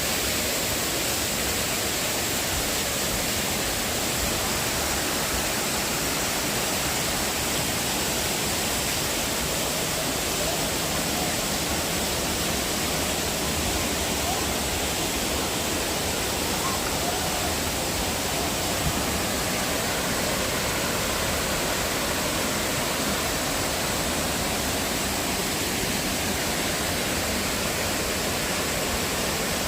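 Waterfall's rushing water: a steady, even hiss that holds constant throughout.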